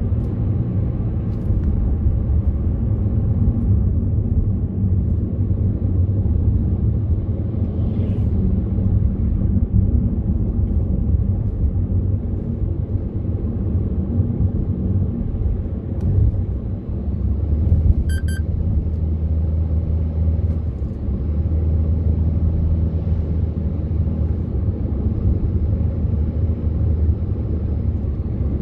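Road noise inside a moving car's cabin: a steady low rumble of tyres and engine at cruising speed. A short electronic beep sounds about two-thirds of the way through.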